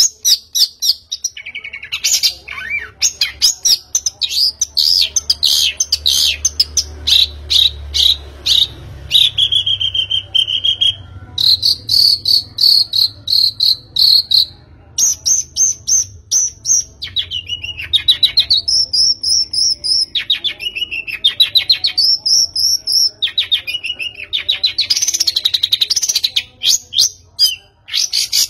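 A songbird singing a long, continuous song of rapid trills and whistled sweeps that keep changing pitch, with only brief pauses.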